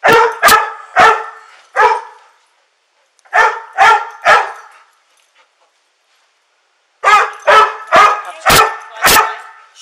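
A trained search dog barking sharply and loudly: about a dozen barks in three runs, with pauses between them. This is its alert at the spot under the child's bed.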